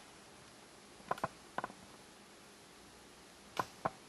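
A metal spoon clinking lightly against a ceramic soup bowl while soup is scooped: a few short clinks a little over a second in, and two more near the end.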